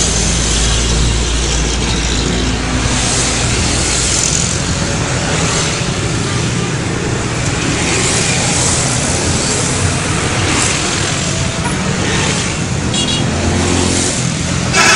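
Road traffic: vehicle engines running and passing by, a steady mix of engine rumble and road noise.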